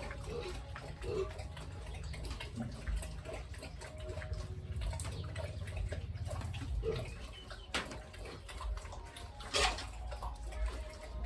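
Water splashing and dripping over a steady low rumble, with short farm-animal calls scattered through and a couple of sharper knocks near the end.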